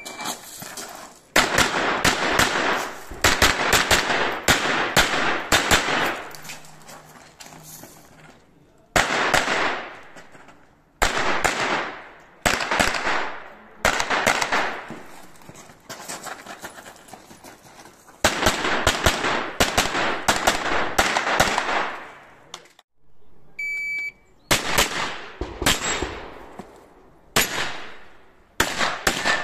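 Strings of rapid gunshots from a pistol-caliber carbine, fired in fast clusters with short pauses between. A short electronic shot-timer beep sounds at the very start and again about 24 seconds in, each followed by more shooting.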